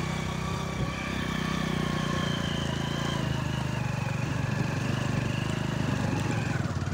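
Hero Honda 100cc single-cylinder four-stroke motorcycle engine running steadily as the bike is ridden on a rough dirt track.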